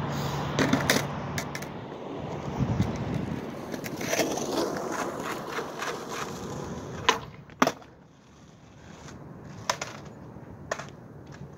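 Skateboard wheels rolling over parking-lot asphalt, with light clicks of the board. About seven seconds in come two sharp clacks of the board hitting the pavement, as in a flip-trick attempt. Then the rolling stops and only a few lighter knocks follow.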